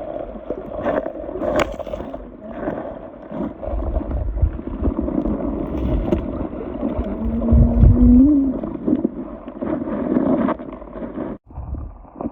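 A boat on the water: a steady drone with water noise against the hull, and a short rising tone a little past the middle.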